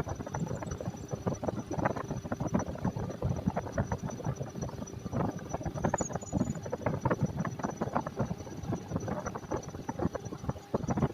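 Lathe running during a tailstock drilling operation: a rapid, irregular rattling clatter with a faint steady whine.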